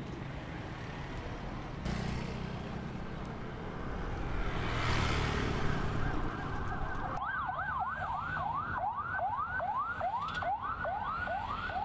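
Street traffic with engines running and a vehicle passing about five seconds in. From about seven seconds in, an emergency-vehicle siren wails rapidly up and down, about two and a half sweeps a second.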